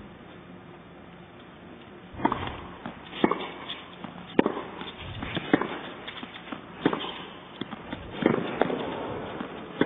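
Tennis rally on an indoor hard court. Sharp knocks of the ball off rackets and court come about one a second from about two seconds in, after a brief lull while the serve is set up.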